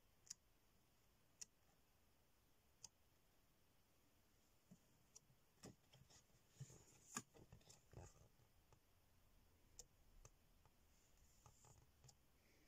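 Near silence with faint scattered clicks and a soft rustle of scrapbooking paper sheets being handled and turned over, busiest about six to eight seconds in.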